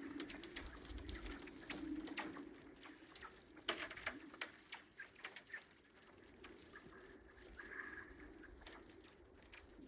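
Thawing lake ice crackling and ticking with many scattered sharp clicks over a low steady hum, the loudest crack a little under four seconds in. The ice cover is breaking up in the spring thaw.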